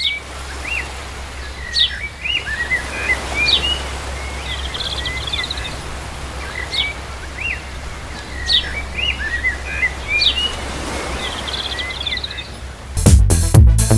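Birds chirping and calling, short chirps, upward sweeps and a brief trill, over a steady low hum. The same sequence of calls repeats about every five seconds, like a looped birdsong recording.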